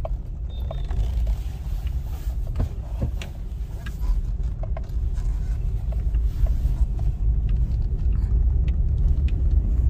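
A Maruti Suzuki Swift petrol car running at low speed, heard inside the cabin as a steady low rumble of engine and road noise, with scattered light clicks and knocks.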